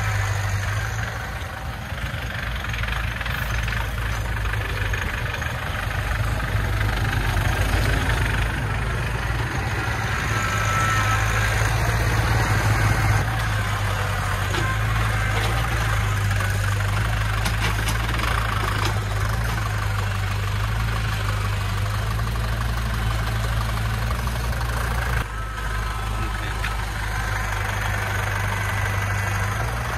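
Diesel engine of a loaded Hoa Mai light dump truck running at low revs as the truck pulls slowly forward, a steady low drone that grows a little louder for several seconds in the middle.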